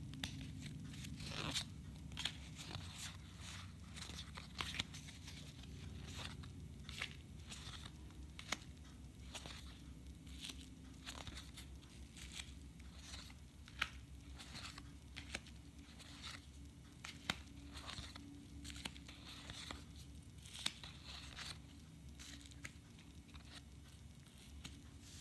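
Pokémon trading cards being handled and laid down on a sheet of bubble wrap: scattered soft crinkles and light clicks of card and plastic, over a low steady hum.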